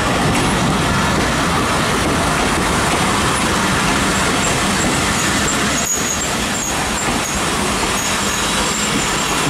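Broad-gauge passenger train coaches rolling past close by: a loud, steady rumble of steel wheels running on the rails.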